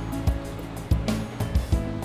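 Background music with a steady beat: repeated low drum thumps over a bass line.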